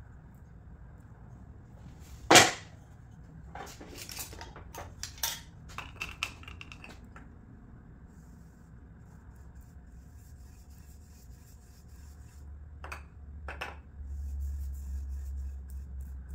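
Small hard clinks from handling a glass mason jar with a metal screw lid: a sharp knock about two seconds in, then a cluster of metallic clicks as the lid is unscrewed and set down. Later two light taps of the brush against the jar and a soft brushing of stain onto bare wood near the end.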